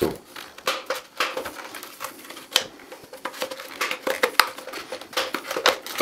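Flat-blade screwdriver prying the plastic clips of a Dyson V6 cyclone filter unit's mesh sieve: many irregular clicks and scrapes of metal on plastic.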